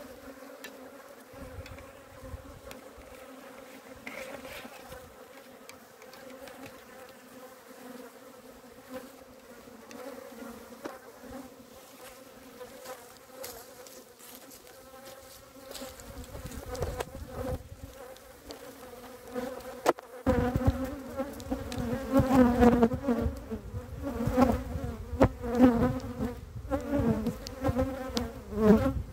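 A mass of Italian honey bees buzzing steadily around an opened hive. The hum grows much louder and wavers in pitch from about two-thirds of the way in.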